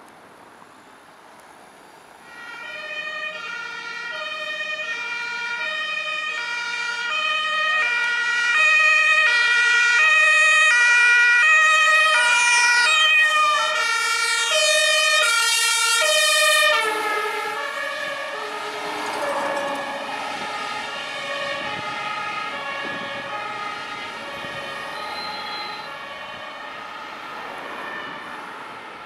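German fire engine two-tone siren (Martinshorn) alternating between its two notes as the fire brigade convoy approaches, starting about two seconds in and getting louder. Partway through, the pitch drops suddenly and the tones blur together, then they slowly fade.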